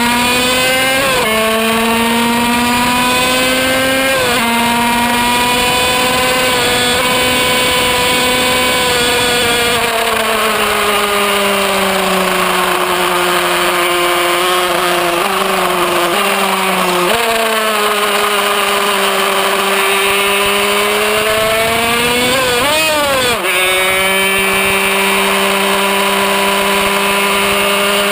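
Kreidler Van Veen 50 cc two-stroke racing motorcycle engine running at high revs, heard from on board. It shifts up twice in the first few seconds with sharp dips in pitch, then the revs fall away through a few quick gear changes in the middle, climb again, flick up and down once shortly before the end, and hold steady.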